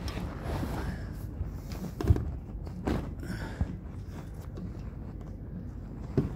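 Handling noise: fabric rubbing close against the microphone with a low rumble, and a few knocks, one about two seconds in, another about three seconds in and one near the end.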